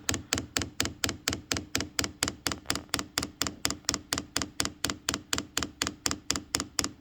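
Chinese diesel heater's fuel metering pump ticking rapidly while priming, about five clicks a second in a steady rhythm, as it pushes diesel up the fuel line.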